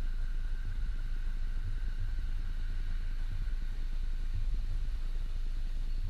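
Volkswagen Golf Mk7 GTI facelift's 2.0-litre turbocharged four-cylinder running at a steady engine speed, a low drone with no revving.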